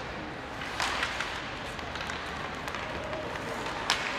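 Ice hockey play over a steady arena hum: sharp knocks of sticks and puck on the ice, one about a second in with a couple of lighter ones after it, and the loudest just before the end.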